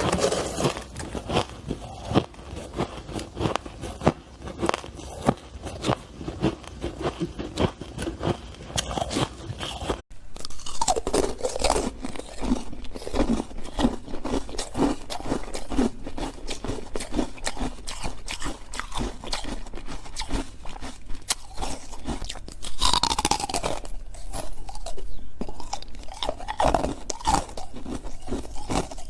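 Person biting and chewing shaved ice close to the microphone: rapid, dense crunching, with a brief break about ten seconds in.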